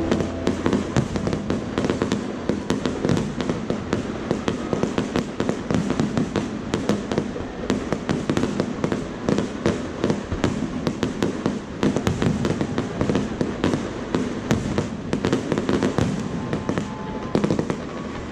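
Fireworks display: aerial shells bursting in a dense, uneven string of bangs and crackles, several a second.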